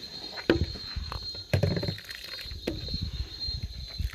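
Large wooden spoon stirring and scooping rice pudding in a cast-iron pot, with three knocks about a second apart as the spoon strikes the pot.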